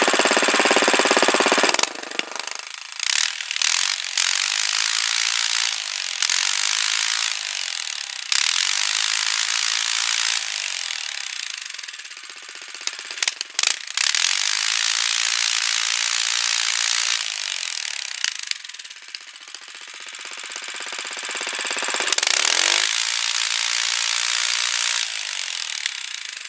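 Predator 212 single-cylinder four-stroke engine, degoverned, with a high-compression head and 18 lb valve springs, running hard. It is loudest for the first couple of seconds, then its speed rises and falls again and again every few seconds.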